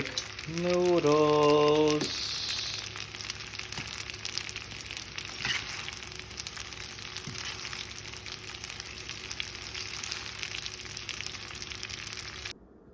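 Spaghetti in garlic butter sauce sizzling in a hot pan as it is mixed, a steady crackling sizzle that cuts off suddenly near the end.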